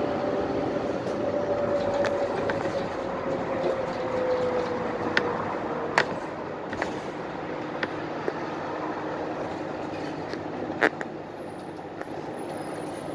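Inside a moving Nagoya city bus: steady engine and road noise with a whine that falls slightly in pitch over the first six seconds, and sharp clicks or rattles, the loudest about six seconds and about eleven seconds in.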